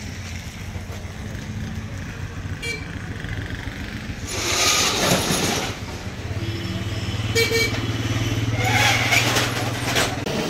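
Street traffic on a wet road: vehicles passing with a loud hiss of tyres, twice, over a steady engine hum, and a short horn toot about seven seconds in.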